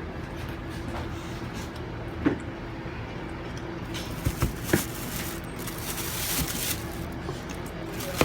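Sneakers and their packaging being handled: a light knock about two seconds in, three quick knocks near the middle, then a few seconds of rustling, over a faint steady hum.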